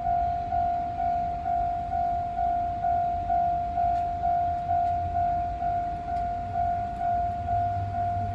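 Level crossing warning bell ringing steadily at about two dings a second, each ding a single clear tone that dies away quickly.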